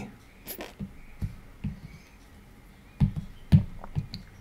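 A few soft, irregular taps and knocks, the loudest two close together about three seconds in.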